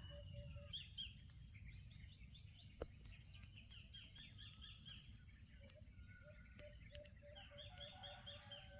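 Faint early-morning farm ambience: a steady high-pitched drone of insects, with birds chirping in quick runs of short notes several times and a faint low call pulsing evenly. A single small tick about three seconds in.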